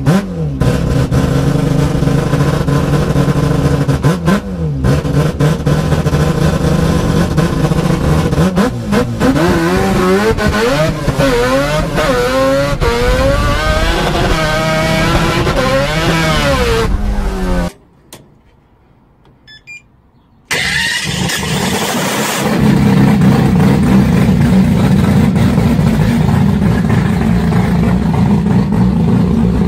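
Rotary race-car engine heard from inside the cockpit, revving hard and swinging up and down in pitch, cut off suddenly about 18 seconds in. After a short quiet gap, a triple-turbocharged rotary engine comes in loud and runs steadily.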